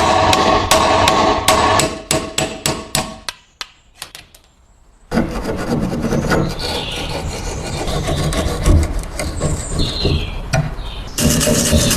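Hand-tool workshop noise: rapid tapping strikes with a ringing tone, a brief pause, then several seconds of steady scraping or rubbing, and rapid strikes again near the end.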